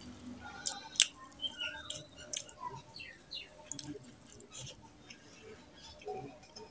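Wet squelching and clicking of bare fingers kneading rice into fish curry on a plate, then mouth sounds of a handful being eaten, with lip smacks near the end.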